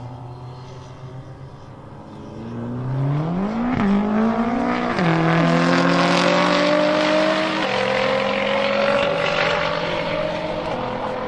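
A straight-piped, twin-turbo V8 BMW M5 F10 and a Nissan GT-R launching side by side from a standing start. The engines hold steady on the line, then the revs climb about two and a half seconds in, broken by quick upshifts. The sound is loudest as the cars pass and eases off slowly as they pull away.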